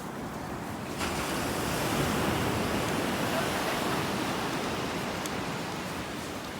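Ocean surf: a wave breaks about a second in and its wash fades slowly over the following seconds, over a steady rush of surf.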